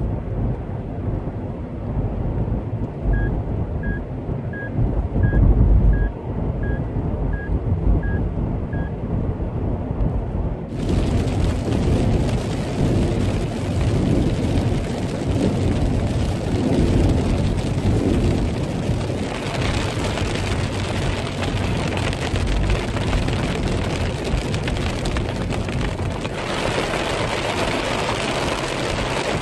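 Road and wind rumble inside a moving car's cabin, with a run of about nine short electronic beeps at an even pace early on. About ten seconds in, the hiss of rain on the windshield and roof comes in suddenly over the rumble and grows heavier twice.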